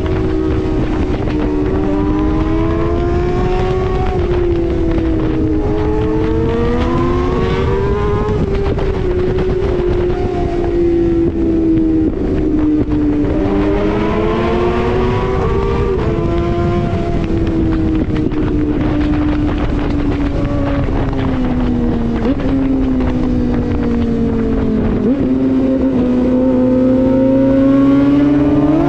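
Suzuki GSX-R1000 inline-four engine under way, its pitch rising and falling as the throttle is rolled on and off, with a long slow fall midway and two short sudden jumps in pitch before it climbs again near the end. Wind noise and road rumble run underneath.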